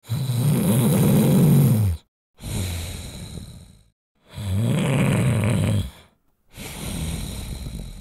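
A person snoring heavily, twice over. Each cycle is a loud, rough snore of about two seconds that rises and falls in pitch, followed by a quieter breath that fades out, with a brief silence before the next snore.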